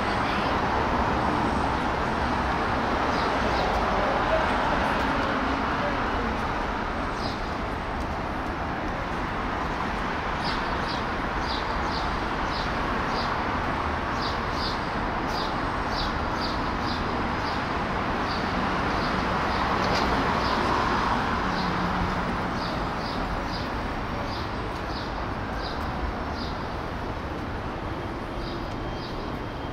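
Busy city street ambience: steady traffic noise from passing cars, swelling a little twice as vehicles go by, with indistinct voices of passers-by. Through most of it runs a light, regular ticking about twice a second.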